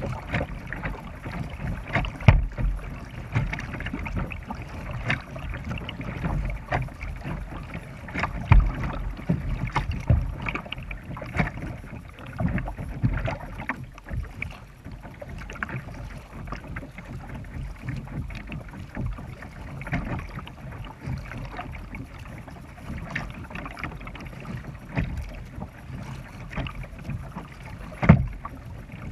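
Kayak being paddled with a double-bladed paddle: repeated paddle strokes splashing in the river, with water washing along the hull, heard close up from the kayak's deck. A few strokes splash louder than the rest.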